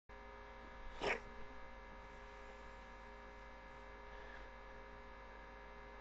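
Steady low electrical mains hum, with one brief faint noise about a second in.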